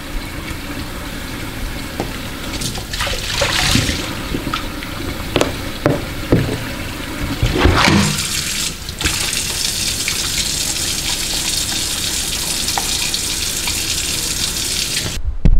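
Kitchen tap running into the sink while dishes are washed by hand, with several knocks and clatters of dishes and a pan. The running water stops suddenly near the end.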